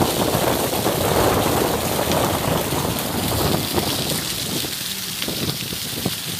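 Wind buffeting a phone microphone over the wash of breaking surf, a rough, steady noise that eases a little about four seconds in.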